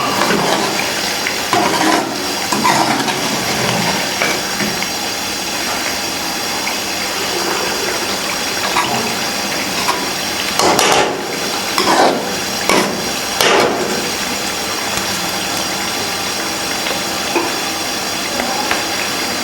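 Water boiling in a large pot of rice water, a steady bubbling. Several short knocks cut in about halfway through.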